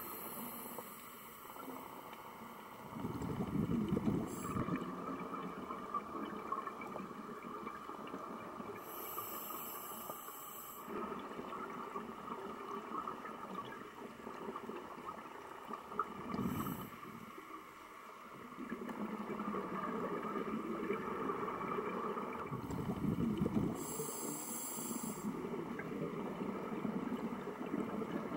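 Scuba diver breathing through a regulator underwater: a hiss on each inhalation and a low rumble of exhaled bubbles, repeating every six or seven seconds over a steady background hiss.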